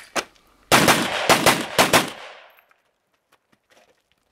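Semi-automatic rifle fire: one shot at the very start, then a quick string of several shots in about a second and a half, each ringing out with an echo that fades away. About two seconds of near quiet follow, with only faint small clicks.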